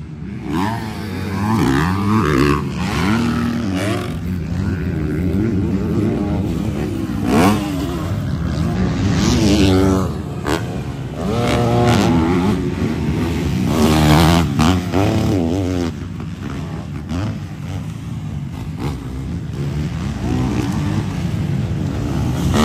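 Motocross bikes racing on a dirt track, engines revving up and falling off again and again as riders hit the throttle for jumps and corners. Several bikes swell louder as they pass, one after another.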